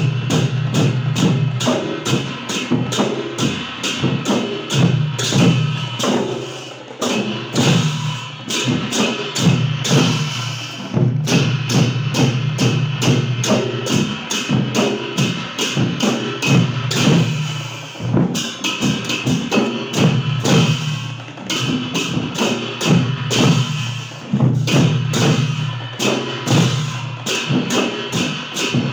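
Traditional Newar percussion music for a Bhaila dance: drums and other percussion played in a fast, even beat of sharp strikes. The beat breaks off briefly about eleven and eighteen seconds in.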